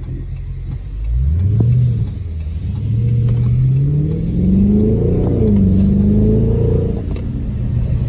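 Dodge Charger Scat Pack's 6.4-litre (392) Hemi V8 accelerating hard. After a steady low note, the engine pitch climbs from about a second in, dips, then rises again in pulls to a peak around five seconds. It drops and rises once more before falling near the end.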